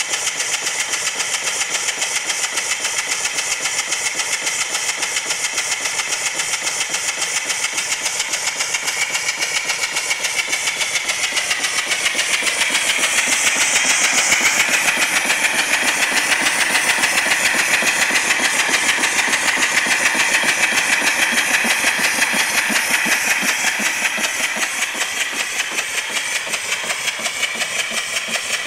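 Live-steam donkey hoist engine running: its exhaust beats in a quick, even rhythm over a steady hiss of venting steam. The sound grows louder and brighter for about ten seconds in the middle, then eases back.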